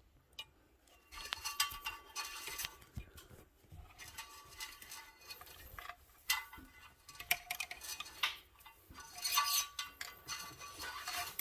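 Metal pull-down cable being fed through a weight machine's steel frame, clinking and scraping against the tubing in several spells of rattling with short pauses between.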